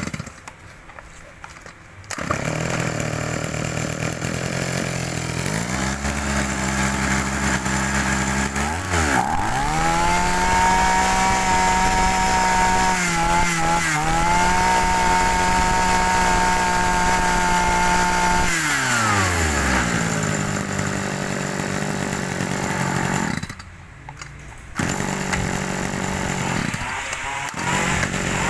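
Tanaka 30cc two-stroke brush-cutter engine started: it catches about two seconds in and idles, is revved up to high speed and held there for several seconds with a brief dip, then drops back to idle. Near the end it stops for about a second and runs again.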